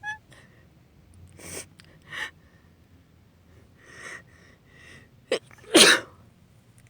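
A woman's sneezing fit: several short sniffs and breaths in, then one loud sneeze near the end.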